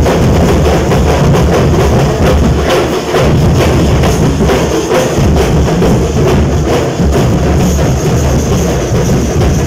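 A Nasik dhol band drumming loudly: many large barrel drums beaten together in a fast, driving rhythm with heavy bass strokes.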